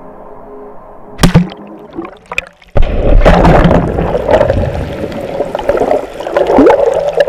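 Rushing, bubbling roar of churning seawater heard through a submerged camera, starting abruptly about three seconds in, after a couple of sharp knocks.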